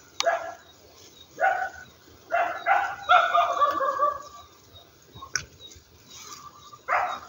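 A dog barking and yipping in several short calls, one a little longer, about three seconds in, and a sharp click a little after five seconds.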